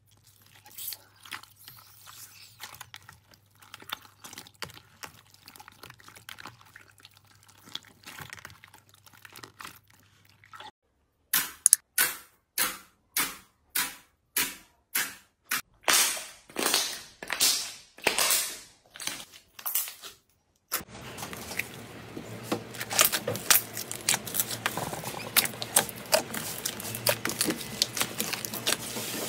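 Hands working slime. First come faint wet clicks, then over a dozen loud, separate squelching pops as fingertips press into clear red slime. After that, dense crackling and small popping clicks as thick orange slime is squashed and spread.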